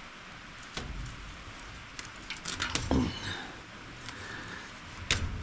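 Scattered clicks and knocks from hand work on a round baler's teeth roller while bale twine is cleared from it, with a cluster of them about halfway through and a sharper knock near the end.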